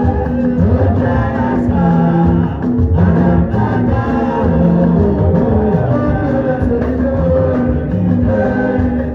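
Live band music with singing, playing steadily throughout during a sound check.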